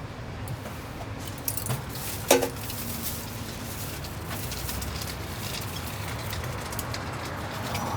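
Food-stall cooking and handling sounds: a steady background with scattered light clicks and one loud metallic or glassy clink a little over two seconds in.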